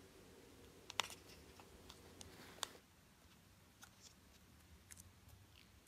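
Near silence with a few faint, scattered clicks and small handling noises as green Play-Doh is pulled out of its plastic tub by hand, and a faint hum that stops about halfway through.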